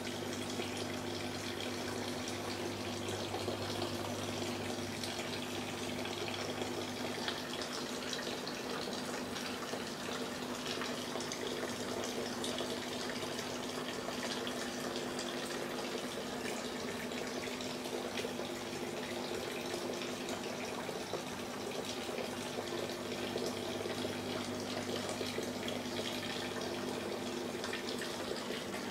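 Steady rush of circulating water in a saltwater aquarium, with a low steady hum under it.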